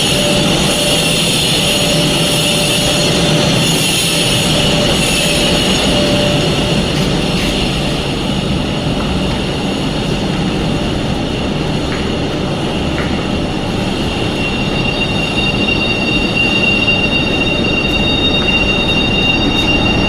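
Loud, steady machinery noise with a high-pitched steady whine over it. The whine grows clearer and stronger in the second half.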